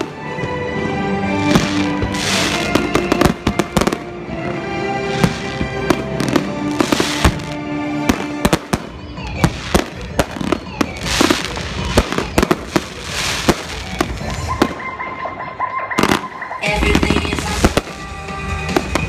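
Fireworks bursting in a rapid run of sharp bangs, aerial shells and low-level effects going off one after another, with music playing underneath.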